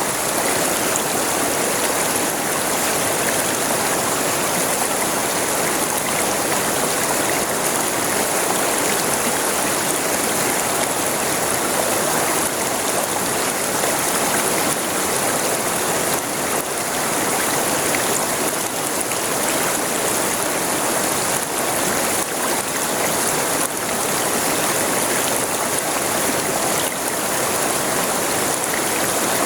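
A river flowing steadily, its water rushing and splashing in a dense, even wash of sound.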